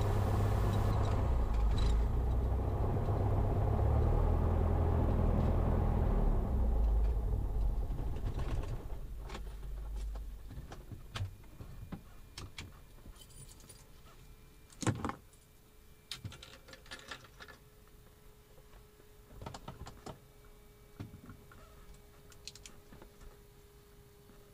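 Cessna 172 piston engine idling, then shut down: its low running sound fades away over a few seconds and is gone by about ten seconds in. After that, scattered clicks and knocks of cockpit switches and keys, the loudest about fifteen seconds in, with a faint steady tone in the background.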